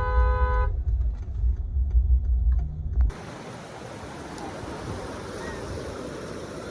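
Heavy low rumble for about three seconds, then a sudden cut to a steady wash of ocean surf and wind noise on the microphone.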